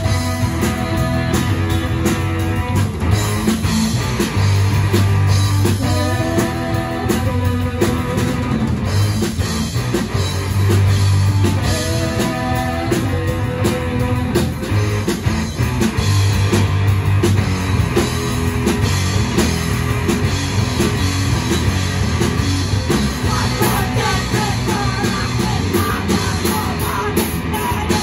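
Live rock band playing: electric guitars and a drum kit, with singers singing over them.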